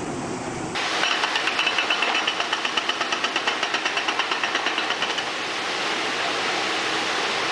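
Heavy machinery knocking rapidly and evenly, about seven beats a second, for about four seconds, then giving way to a steady rushing noise.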